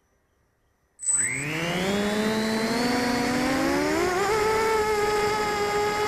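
Near silence, then about a second in the brushless motors of a 250-size FPV racing quadcopter spin up suddenly. Their whine rises in pitch and then holds steady at a high pitch.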